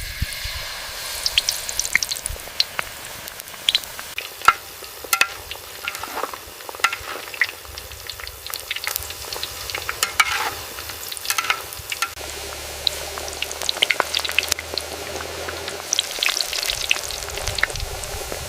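Pakoras deep-frying in hot oil: a steady sizzle full of sharp, irregular crackles and pops.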